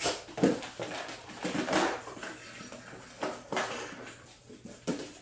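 A Schapendoes dog searching scent tubs, nosing, bumping and tipping over plastic containers: a run of irregular hollow plastic knocks and clatters.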